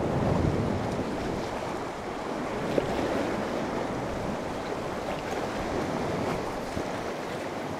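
Sea waves washing against a rocky shore, with wind buffeting the microphone; a short click about three seconds in.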